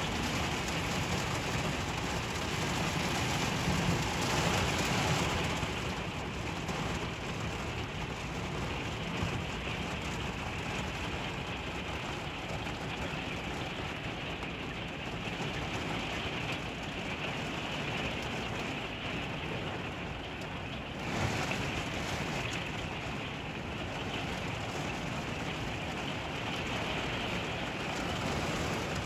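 Steady rain, heard from indoors behind a rain-streaked window. It swells briefly about four seconds in and again around twenty-one seconds.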